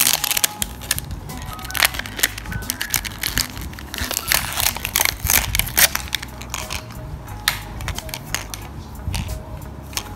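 Paper label and plastic wrap being peeled and crinkled off a Mini Brands toy capsule ball: a dense run of crackles and rustles, thickest over the first six seconds and sparser after, over background music.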